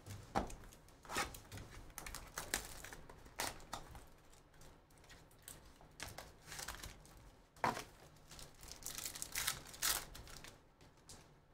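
Crinkling and tearing of plastic wrapping and cardboard as a sealed trading-card hobby box is opened and its wrapped packs are pulled out: irregular crackles and rips, with a longer run of tearing near the end.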